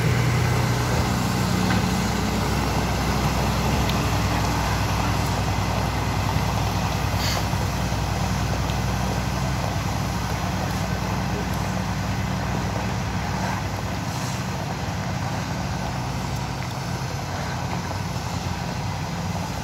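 Diesel engine of a pneumatic-tyred road roller running steadily as it rolls over freshly laid stone chippings, slowly fading as the roller moves away. A single brief click about seven seconds in.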